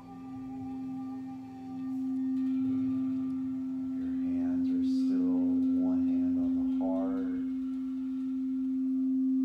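Quartz crystal singing bowl sung with a mallet around its rim: one steady sustained low tone that swells about two seconds in, with fainter higher ringing tones above it. In the middle a few short wavering tones rise and fall over the drone.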